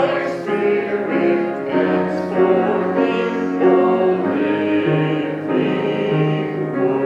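Choir singing slow, held notes with vibrato during a church service.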